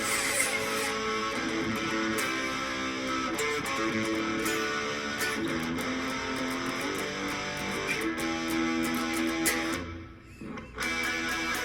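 Electric guitar played through an amplifier with an overdrive pedal: rock and roll riffs and strummed chords, with a short break about ten seconds in before the playing resumes.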